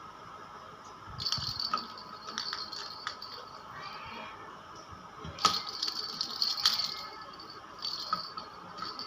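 A kitten's toy ball with a rattle inside, rattling in several short bursts of clicks as it is batted and rolled about by kittens.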